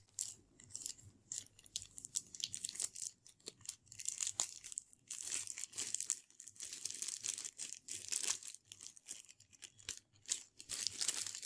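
A RAM module's retail packaging being torn and crinkled open, in irregular bursts of rustling.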